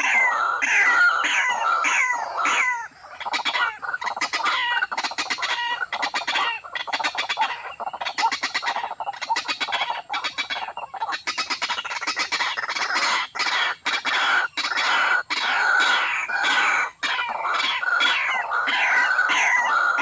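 Waterhens calling over and over: short falling cluck-like calls about two a second, breaking in the middle into a fast run of clattering ticks, then settling back into steady repeated calls near the end.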